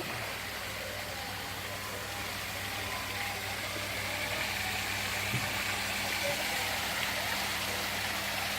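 Artificial pool waterfall splashing steadily, with a constant low electric hum of a pump motor underneath; the splashing grows louder about four seconds in.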